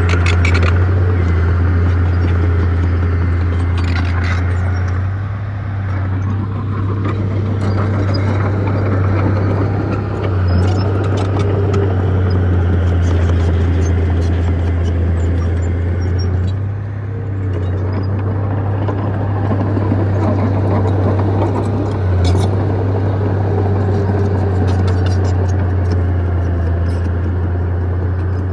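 Crawler bulldozer's diesel engine running steadily with a deep drone, dipping briefly a few times, with scattered metallic clanks.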